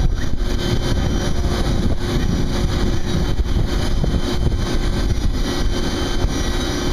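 Steady drone of running machinery: a low rumble with a constant hum, unchanging throughout.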